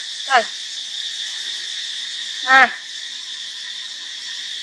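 A steady, high-pitched insect chorus runs throughout. Two short, falling vocal calls stand out, one just after the start and one a little past halfway.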